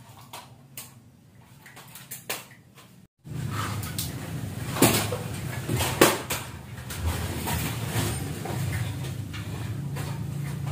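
A child's kick scooter rolling across a concrete floor: a steady low rumble from its small wheels, with a few sharp knocks. It begins after a brief dropout about three seconds in.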